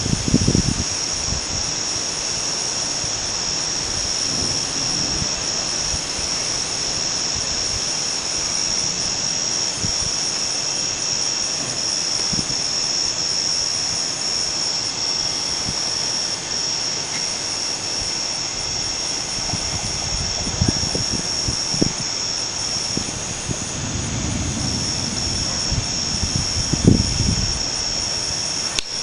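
Gusty wind buffeting the microphone over a steady hiss and a constant high-pitched whine. The strongest gusts come right at the start and again in the last several seconds.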